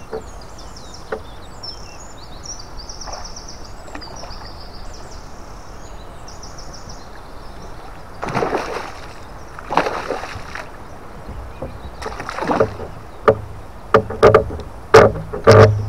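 Hooked pike thrashing at the water's surface beside the boat: a few splashes, then a quick run of sharper splashes near the end as the fish is brought to the side.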